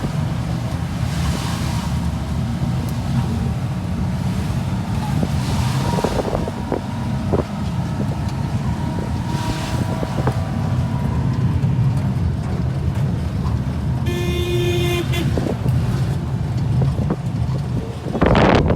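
A motor vehicle runs with a steady low rumble amid road traffic. A car horn honks once, for about a second, roughly three-quarters of the way through.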